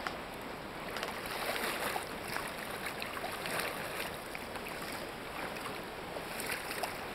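Hooked steelhead thrashing in shallow river water, a run of irregular splashes over the steady wash of the river.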